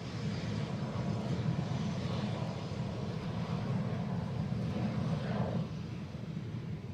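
Jet aircraft engines running: a steady low rumble with a whine that glides in pitch, loudest in the middle and easing off near the end.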